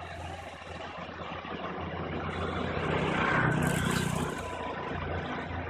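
Mahindra DI diesel tractor engine running steadily while the tractor spreads fertiliser, growing louder about three seconds in and easing off again.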